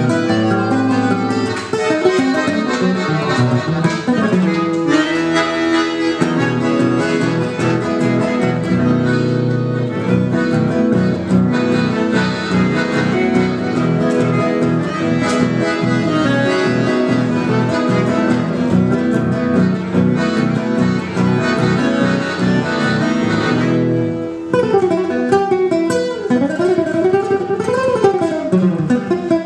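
An accordion and an acoustic guitar playing a piece together live. About 24 seconds in, the held chords break off and quick rising and falling runs follow.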